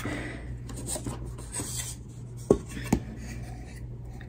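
Small wooden craft crates being handled and fitted together during gluing: light rubbing and scraping, with two sharp knocks about half a second apart a little past halfway.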